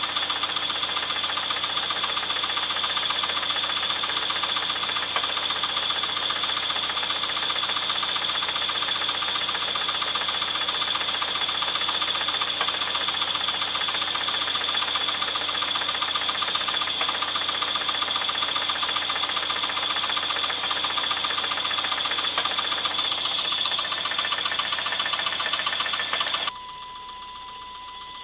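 1996 Chevrolet S10's 2.2-litre four-cylinder engine running steadily with a rapid, even knock, a knock whose cause the owner does not know. Near the end the sound drops suddenly to a much quieter level.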